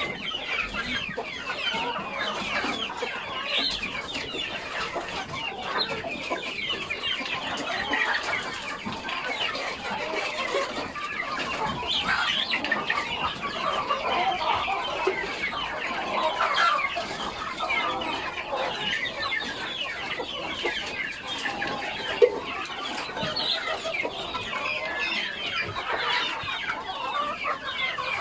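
A flock of chickens clucking and calling continuously, many birds at once. One short sharp knock about two-thirds of the way through.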